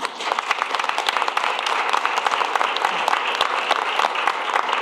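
Audience applauding: many people clapping together, breaking out all at once and holding steady.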